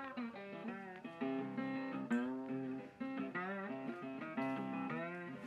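Background music played on plucked guitar, a run of picked notes.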